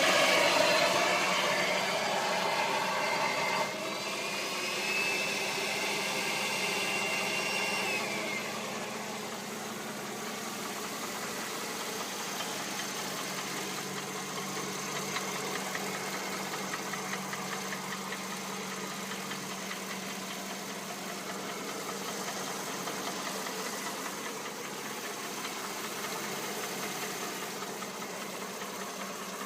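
Mercedes-Benz M272 V6 petrol engine running with a knock. It is louder for about the first eight seconds, with a tone that slowly rises and then falls away, then settles to a steady idle.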